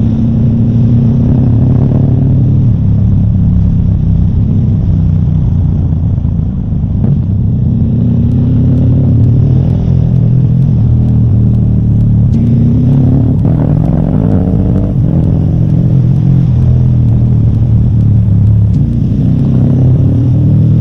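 A motor vehicle's engine runs steadily and loudly, its pitch rising and falling several times as it revs up and eases off.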